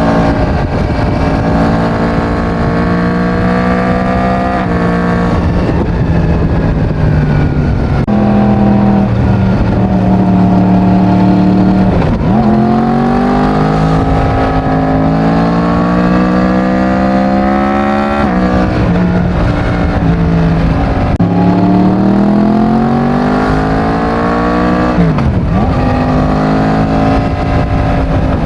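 Yamaha MT-10's crossplane inline-four with its stock exhaust, accelerating hard. Its pitch climbs and then drops sharply at each gear change, about six times over the stretch.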